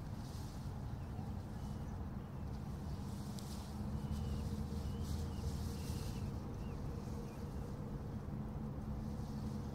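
Open marsh ambience: a steady low rumble with a faint hum under it, and a few faint, short bird calls about two to four and a half seconds in.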